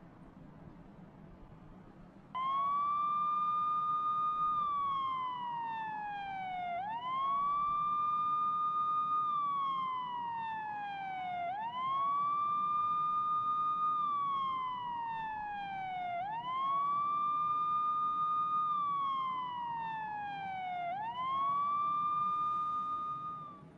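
Emergency vehicle siren wailing: each cycle rises quickly, holds its top pitch for about two seconds, then slides slowly down, repeating about every four to five seconds. It starts a couple of seconds in and stops near the end, five cycles in all.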